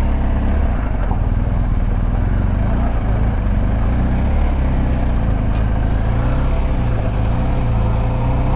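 BMW adventure motorcycle's engine running steadily at low speed in second gear on a rough dirt road, with wind and tyre noise.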